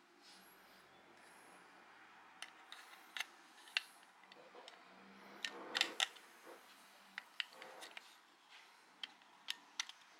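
Sharp plastic clicks and taps from handling a headlamp's hinged plastic battery case and AAA batteries while the batteries are fitted into the compartment. The clicks come singly and irregularly, with the loudest cluster about six seconds in.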